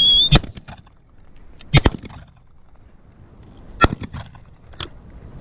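A short, loud blast on a gundog whistle, rising slightly and then held, the stop signal to a spaniel after a rabbit is flushed. Then come a few sharp clicks, spaced a second or two apart.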